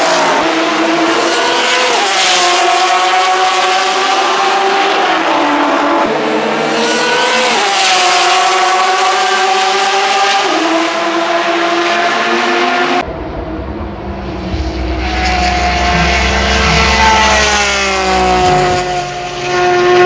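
Porsche 911 RSR flat-six race engine at high revs as race cars pass at speed, its pitch dropping sharply several times. About two-thirds of the way through the sound changes abruptly to another engine note with a deep rumble, which falls and then climbs again.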